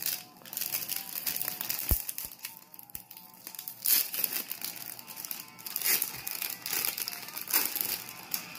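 Plastic card packaging crinkling and rustling as it is handled, with a few sharp clicks.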